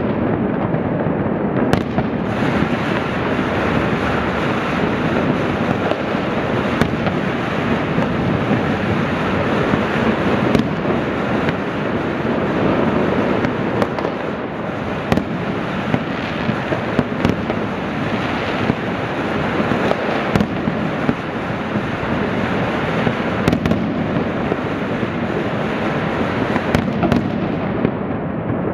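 Mass New Year fireworks and firecrackers going off at once: a continuous crackling din with a sharp, louder bang every few seconds, including aerial shell bursts.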